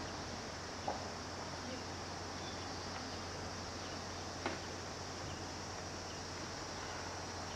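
Steady high-pitched insect chorus over a constant low hum, with two faint clicks about one second and four and a half seconds in.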